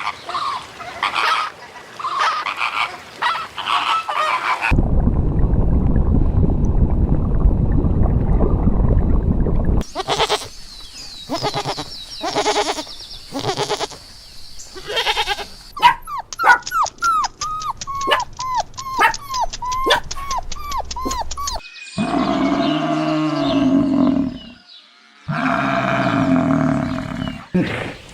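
Different farm animals calling in a string of short clips that change abruptly, including a run of quick, repeated falling chirps and some lower drawn-out calls. A stretch of steady low rushing noise, like wind or handling, fills one part.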